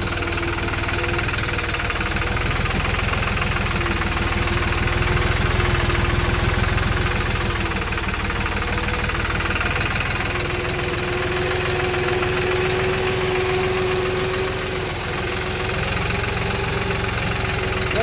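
Compact tractor's diesel engine running steadily while the tractor drives along, with a steady whine over the engine sound.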